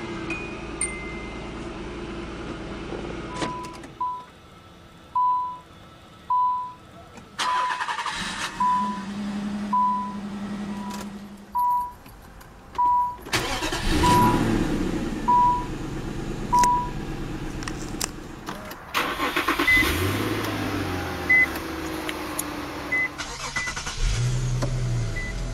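Infiniti car warning chimes from several generations. A run of short single beeps about once a second gives way to an engine cranking and starting. Then come short higher-pitched beeps and another engine start as a push-button start is pressed near the end.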